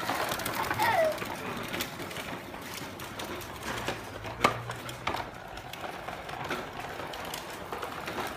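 Hard plastic wheels of children's tricycles rolling over paving stones, an irregular rattling clatter of small clicks and knocks, with one sharper knock about halfway through.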